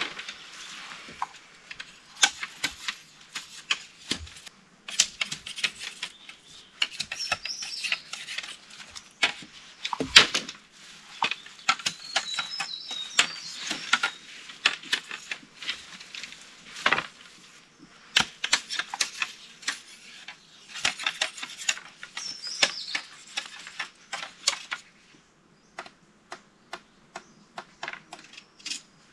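Small jungle bamboo (cane) being cut and gathered by hand: leafy stalks rustling, with frequent sharp chops and snaps at an irregular pace, thinning to a few scattered clicks near the end.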